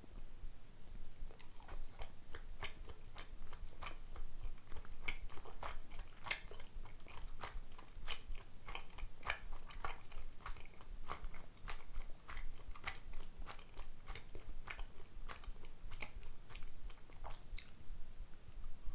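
Chewing of sticky rice dumplings (dango): a long run of soft, irregular mouth clicks, several a second.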